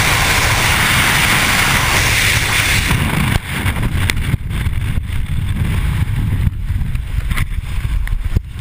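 Freefall wind roaring over the microphone; about three and a half seconds in the rush drops off sharply as the parachute opens, leaving a gustier, quieter wind broken by sharp flaps and clicks of fabric and gear.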